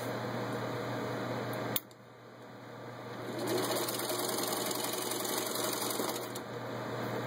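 Singer 15-91 sewing machine stitching through four layers of vinyl upholstery. About two seconds in it stops with a click, then starts again and speeds back up to a steady run.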